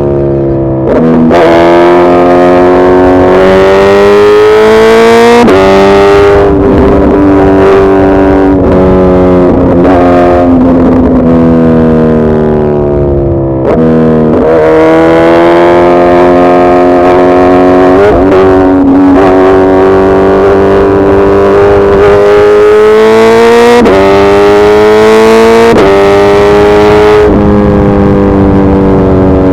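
Suzuki Hayabusa Gen3's 1340 cc inline-four engine running hard and loud, its pitch creeping upward and then jumping sharply several times, as with gear changes, with one brief drop in level and pitch about 13 seconds in.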